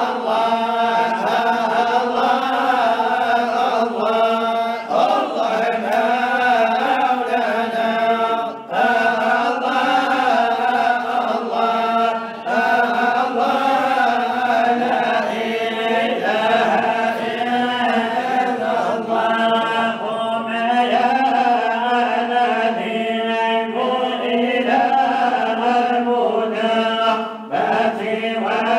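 Unaccompanied Sufi devotional chanting (samaa) by male voices: long, wavering melodic phrases sung on drawn-out syllables into a microphone, over a steady low held tone.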